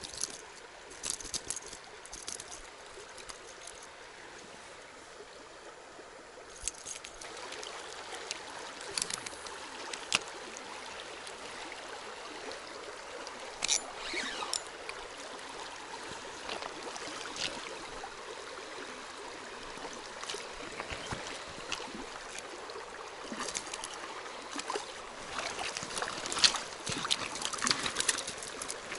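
Shallow stony river running steadily over rocks, the rush of water growing louder about seven seconds in, with scattered small clicks and splashes that come thicker near the end.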